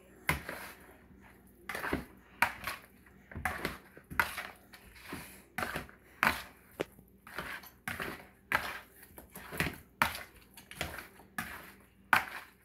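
Metal fork scraping and knocking against a bowl as it turns and coats raw oxtail pieces in seasoning, in short strokes about two a second.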